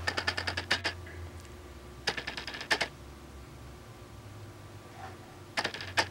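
Sewing machine stitching in three short bursts of rapid, even clicking, about two seconds apart, over a low motor hum that stops about halfway through.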